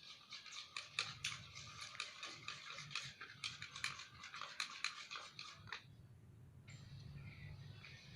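Slime mixture being stirred: a quick, irregular run of wet, sticky crackling clicks that stops abruptly about six seconds in, followed by a steady soft hiss over a low background hum.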